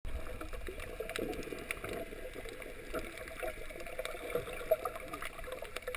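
Underwater ambience recorded from inside a camera's waterproof housing: a steady muffled wash of water with frequent small clicks and crackles.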